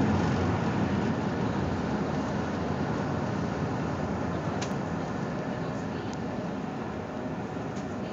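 Steady noise of a passenger ferry under way: engine drone mixed with the rush of water churned up in its wake.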